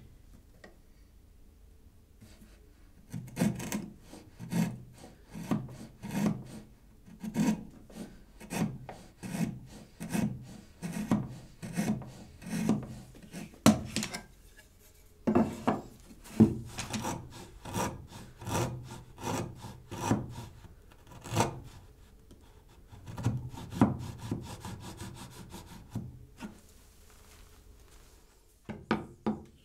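Hand router plane cutting the wall of a mortice in wood, paring it flat: short scraping strokes about one and a half a second, in three runs broken by two short pauses, with a couple of sharp knocks in the first pause.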